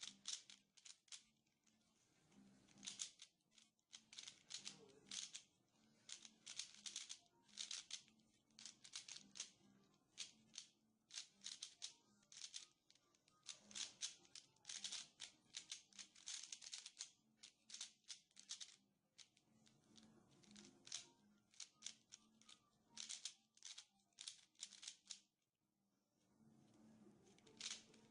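Rubik's Cube being turned rapidly by hand during a speed solve: a fast, irregular clatter of plastic clicks as the layers snap round. The clicking stops for a couple of seconds near the end, then resumes.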